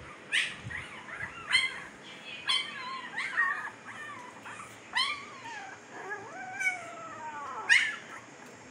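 Fifteen-day-old Siberian husky puppies whimpering and squealing: a string of short, high cries that fall in pitch, about one a second, with a longer wavering cry about six seconds in.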